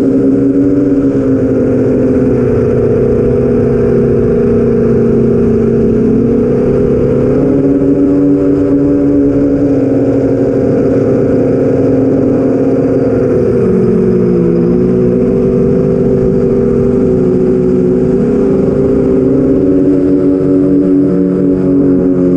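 Motors and 8-inch propellers of an iFlight XL8 FPV quadcopter, heard from the onboard camera: a steady, loud buzzing drone of several pitches that rises and falls slightly with throttle, dropping lower for a moment just past the middle.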